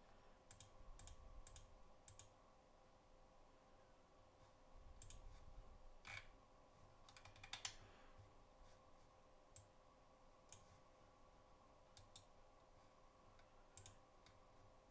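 Faint, scattered clicks of a computer mouse, about a dozen, with a small cluster about two thirds of the way through.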